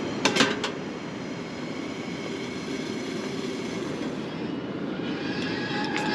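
Steady rumble of ocean surf, with a few sharp metal clinks from the enamel coffee pot on the camp stove just after the start. Near the end, quick clinks and splashing as coffee is stirred in a stainless French press.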